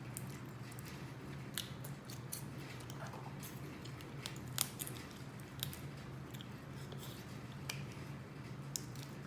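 Close-miked eating of crab legs: wet mouth smacking and chewing, with scattered sharp clicks and snaps. The loudest click comes about four and a half seconds in. A steady low hum runs underneath.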